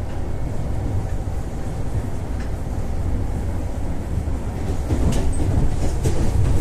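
Ivolga 4.0 electric train running between stations, heard from inside the carriage: a steady low rumble that grows a little louder near the end, with a few faint clicks from the wheels on the track.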